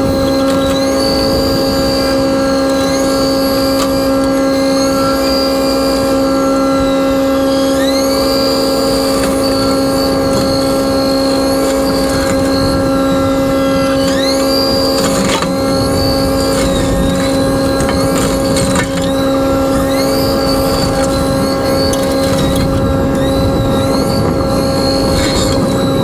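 A 2021 Takeuchi TB240 compact excavator running a RUT MFG 42-inch Brush Eliminator hydraulic mulcher head on 16 gpm auxiliary flow. There is a steady machine drone, and over it a high whine that dips in pitch several times and recovers.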